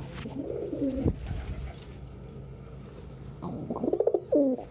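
Domestic pigeons cooing, in a bout at the start and another near the end, with a low thump about a second in.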